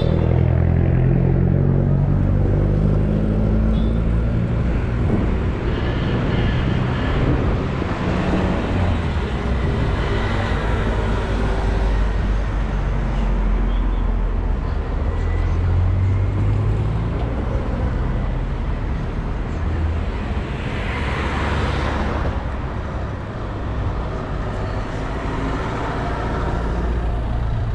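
Street traffic: cars running along a town street with a steady low rumble, one vehicle passing close about twenty seconds in.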